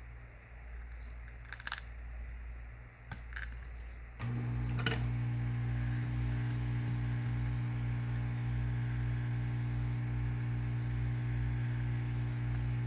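A heat gun switched on about four seconds in and running with a steady hum, warming the phone to soften the screen adhesive. Before it, a few light clicks and taps of tools on the phone.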